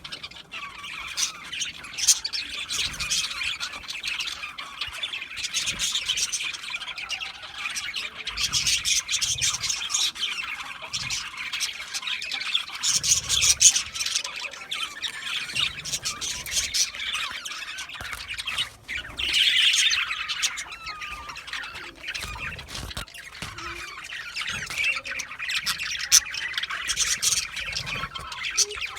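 A flock of budgerigars chattering and chirping continuously, a dense mix of warbles and squawks with louder flurries every few seconds.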